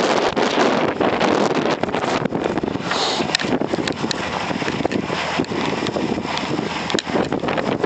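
Strong blizzard wind buffeting the microphone: a loud, steady rush of noise broken by many short crackling pops.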